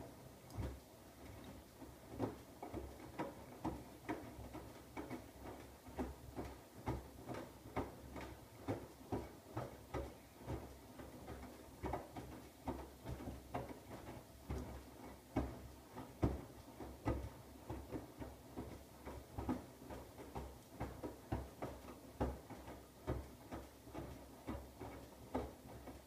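Siemens iQ700 front-loading washing machine's drum turning during a 60 °C whites wash: a steady low motor hum under irregular thuds and splashes of the wet laundry, about two or three a second, starting abruptly.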